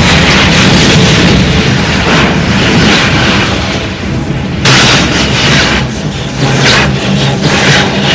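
Loud cartoon electric-shock sound effect: a steady low buzz under crackling, with a sudden new surge about four and a half seconds in.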